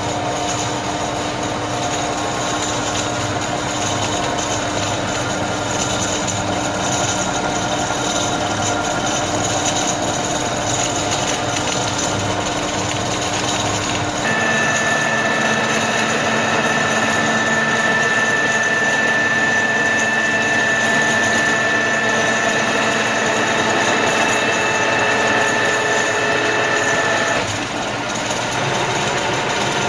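Radial arm drilling machine running, a steady mechanical gear-driven whir with several steady tones. About halfway through the pitch shifts and a high whine joins in, then drops out near the end.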